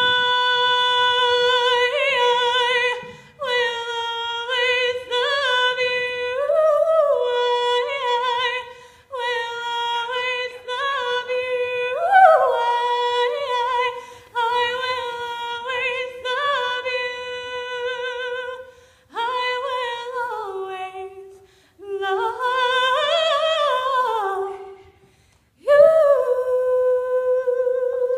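A girl singing solo, unaccompanied, into a microphone. She holds long notes on nearly the same pitch and slides between them in phrases, with short breaths between phrases and a longer pause near the end before she holds one more steady note.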